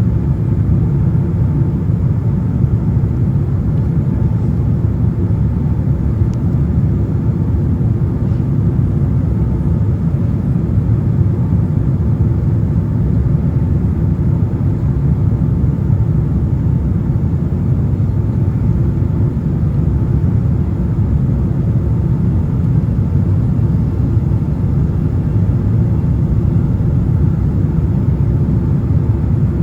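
Cabin noise of a Boeing 767-400 heard from a window seat in flight: a steady low rumble of engines and airflow that holds even throughout.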